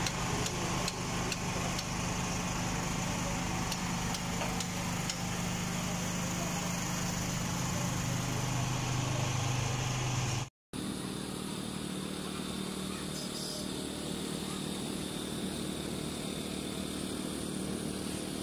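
Steady engine hum with background street noise and faint voices. The sound drops out for a moment about ten seconds in, then picks up again with a changed, similar steady ambience.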